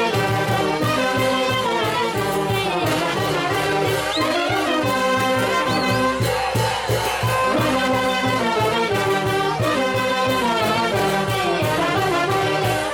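Brass band music: trumpets and trombones playing a carnival dance tune over a steady bass beat.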